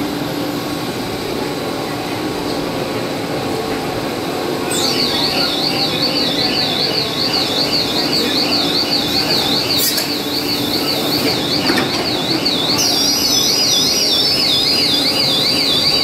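A steady hum from a running cast stretch film extrusion and winding line. About five seconds in, an electronic alarm starts warbling up and down about three times a second and keeps going. Near the end a second high tone gliding downward joins it.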